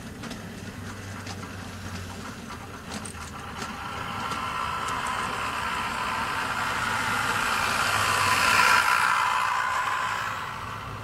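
Model diesel multiple unit running along the layout's track: the hum of its motor and wheels grows louder, peaks about eight or nine seconds in as it passes close, then fades. Light clicks of wheels over rail joints sound in the first few seconds.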